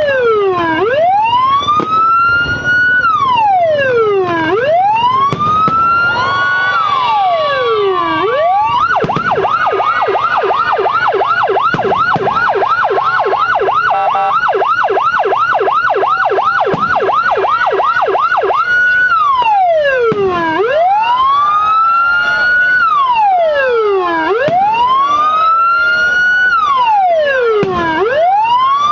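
Electronic police-escort (patwal) siren, a 9–12-tone module driving a 10–15 watt TOA horn speaker. It sweeps slowly down and quickly back up every few seconds, holds a steady tone briefly about seven seconds in, then switches to a fast yelp of about four sweeps a second for some ten seconds before returning to the slow sweeps.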